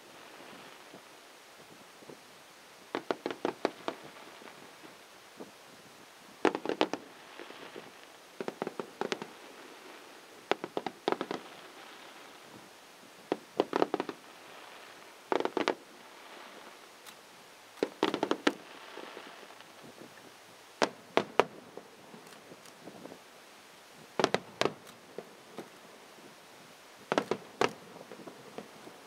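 Fireworks shells bursting: clusters of sharp bangs and crackles, a few in quick succession, coming every two to three seconds.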